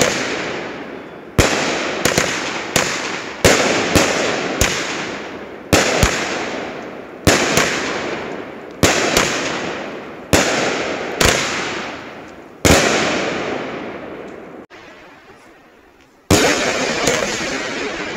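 12-shot, 200-gram consumer firework cake firing: a sharp bang every second or so, some in quick pairs, each followed by a fading hiss as the glitter-trailed stars burn out. A longer pause comes before a final shot near the end.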